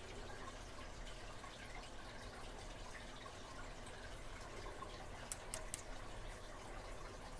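Faint small clicks and ticks of tiny pin tumbler lock parts being handled while a spring is fitted into a pin chamber. There are three sharper ticks in quick succession a little past halfway.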